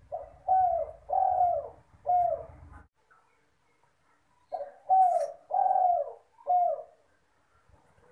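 Spotted dove (derkuku, tekukur) cooing: two phrases of four low hooting notes, each a short note, two longer ones and a short last one, with a pause of about a second and a half between them.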